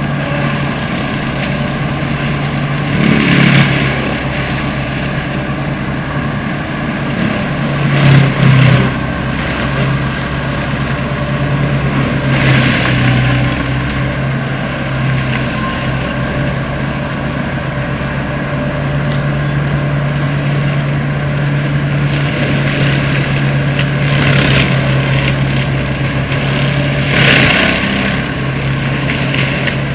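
ASV RC100 tracked skid steer's diesel engine running under load, driving a Seppi MiniForst hydraulic mulcher, with a steady hum throughout. About five brief, louder surges of noise break in, as the mulcher head bites into material.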